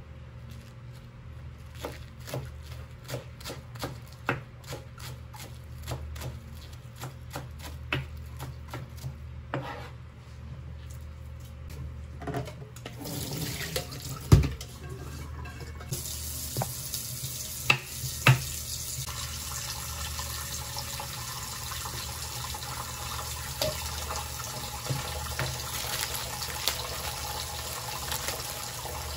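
Knife strokes on a plastic cutting board, clicking about once or twice a second, as shredded cabbage is cut. About halfway through there is a loud knock, then the kitchen tap runs steadily into a steel sink as cabbage is rinsed in a plastic colander.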